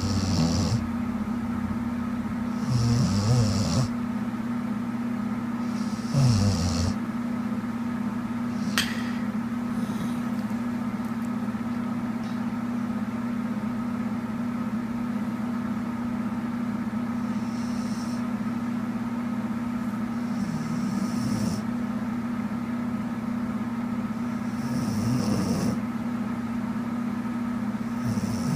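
A woman snoring in her sleep, with about seven rasping snores a few seconds apart and a long pause in the middle. A steady hum runs underneath, and there is a single sharp click about nine seconds in.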